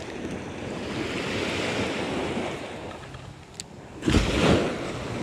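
Small sea waves washing onto the beach, swelling for a moment about a second in, with a brief louder low rumble about four seconds in.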